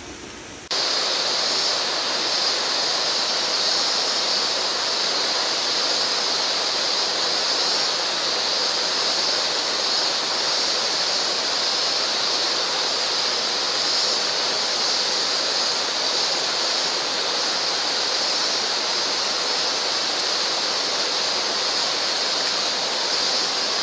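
A shallow, rocky mountain river rushing, a steady water noise that starts abruptly just under a second in.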